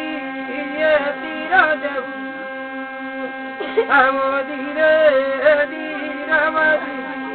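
Adivasi thali, a brass plate with an upright stick rubbed by the fingers, giving a steady buzzing drone. A voice sings over it in short phrases that rise and fall.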